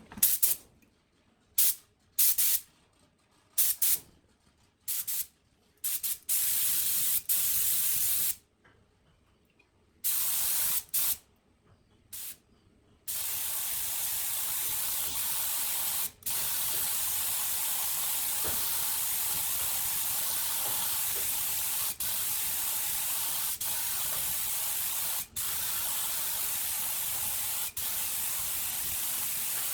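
A spray hissing in short bursts for about the first thirteen seconds, then spraying almost steadily with a few brief breaks.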